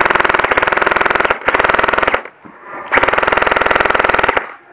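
M4-style airsoft rifle firing on full auto: two long bursts of fast, evenly spaced shots, the first about two and a half seconds, the second about a second and a half after a short pause.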